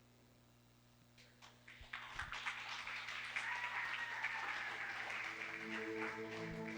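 A congregation applauding: a few scattered claps about a second in, building into steady applause. Near the end, soft sustained instrumental chords begin under it.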